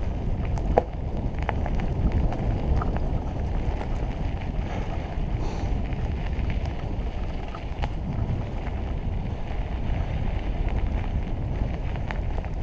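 Mountain bike rolling along a dirt trail: steady wind buffeting the microphone and tyre rumble, with a few sharp clicks and knocks from the bike over bumps.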